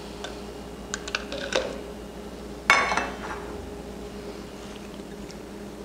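Light clicks of a silicone spatula scraping a small glass bowl, then one sharper ringing clink of glass against glass near the middle, over a faint steady hum.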